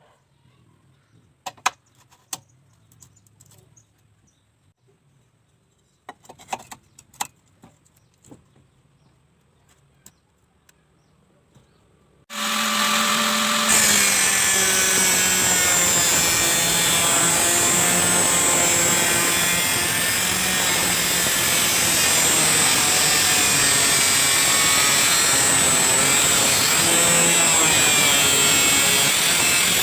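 A few light clicks and knocks, then about twelve seconds in an angle grinder switches on and runs steadily and loudly with a high whine.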